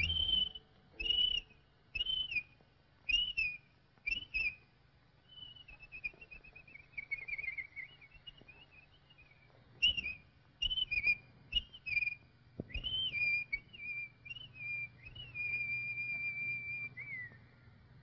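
Whistled bird calls voicing a cartoon bird: short arched notes about one a second, then a wavering run of quick notes, more short calls, and a long held note that drops at the end.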